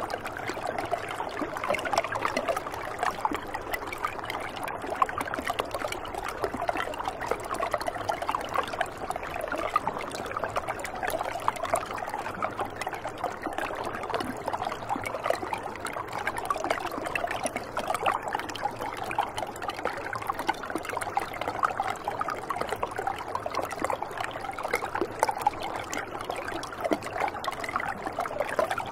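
Shallow river water running in a thin sheet over rock, a steady close-up trickling and splashing.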